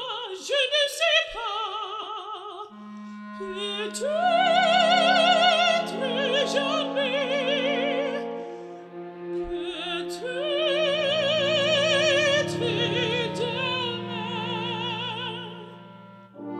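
Background music: an opera aria, a high female voice singing long held notes with wide vibrato over an orchestra.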